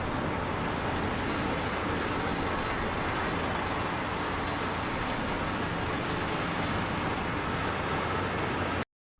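Heavy road-construction machine's diesel engine running steadily with a constant low drone, cut off abruptly near the end.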